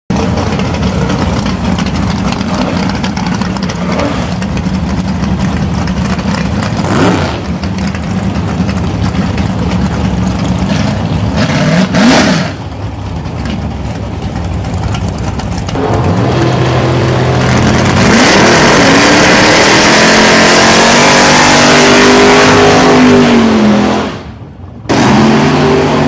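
1956 Ford Thunderbird drag car's 514-cubic-inch Ford V8 idling steadily, then revved hard twice. It is then run at full throttle down the drag strip, its pitch climbing as it pulls, with a brief drop in sound near the end.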